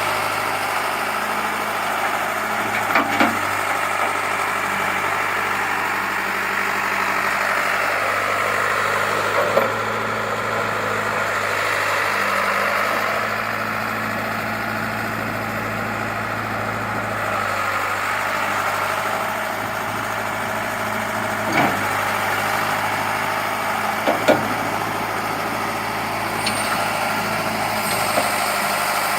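John Deere 410 backhoe's engine running steadily at idle, with a few short knocks or clunks over the run.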